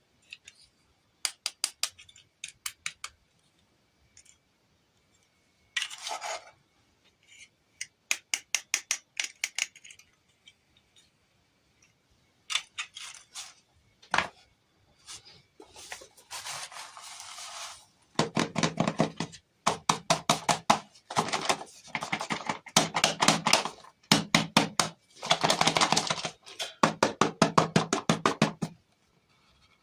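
Small plastic toy pieces and packaging being handled up close: runs of quick clicks and taps, with short bursts of rustling. The last ten seconds are the busiest and loudest, with dense clicking and clattering.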